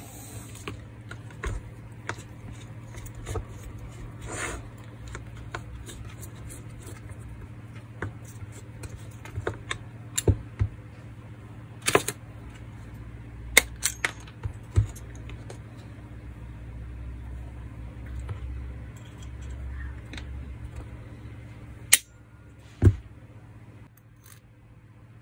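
Steel hand tools and small metal parts clinking and knocking against the wall chaser's aluminium gear housing and the workbench. Scattered sharp clinks, the loudest about halfway through and a pair near the end, over a steady low hum.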